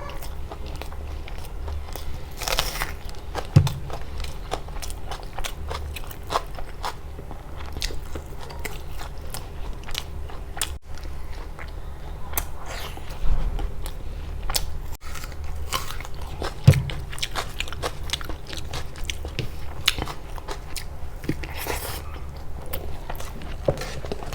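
Close-miked eating: biting and chewing with many short crunches and mouth clicks, over a steady low hum.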